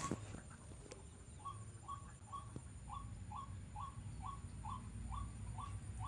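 Bird calling a rapid run of short, identical notes, about two and a half a second, starting about a second and a half in.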